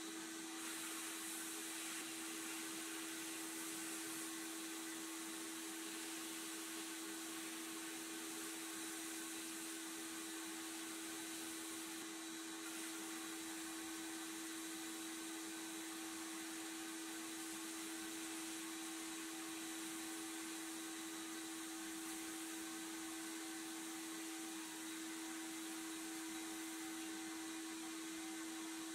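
Sandblast cabinet in use: steady hiss of the blast gun's air and abrasive stripping rust and paint from a pressed-steel toy car body, over a steady hum.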